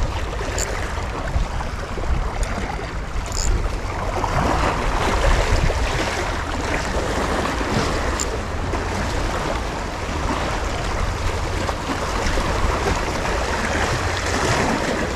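Small sea waves washing against shore rocks, a steady rushing noise, with wind buffeting the microphone as a low rumble.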